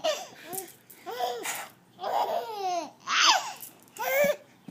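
A young child laughing and babbling in about six short, high-pitched bursts, the pitch sliding downward in several of them.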